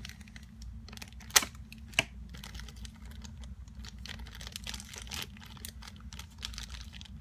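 Crinkly plastic and foil packaging of a blind-bag mini figure being handled and unwrapped by hand, a run of small crackles with two sharper clicks about a second and a half and two seconds in.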